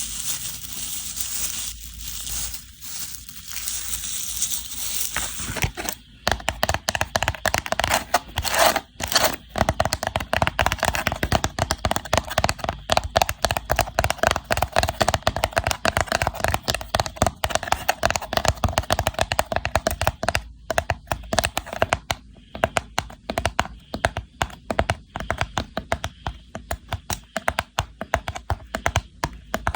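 Woven rattan box rubbed and scratched by hand: a steady hissing rub for the first several seconds, then rapid, dense tapping and scratching on the weave.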